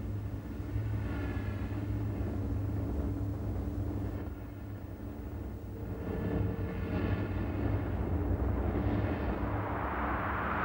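Volcanic eruption roaring from Hekla's 1970 craters: a deep, steady rumble with a held low hum under it, swelling into a louder rushing noise near the end.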